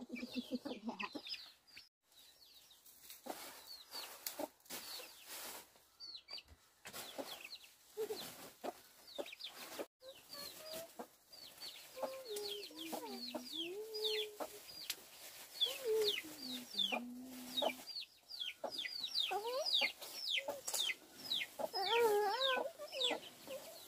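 Chickens clucking, with many short, high, falling cheeps throughout and scattered clicks and knocks.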